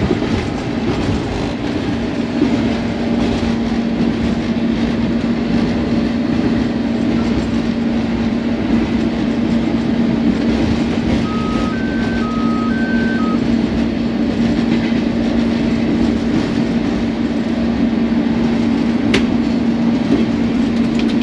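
Diesel-electric locomotive running at speed, heard from inside its cab: a steady engine hum over the clatter of wheels on rails. About halfway through come a few short beeps alternating between two pitches, and there is a single sharp click near the end.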